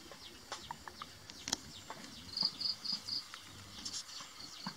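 An insect chirping a short run of high, evenly spaced pulses, about four a second, starting about two seconds in, over faint scattered clicks and rustles.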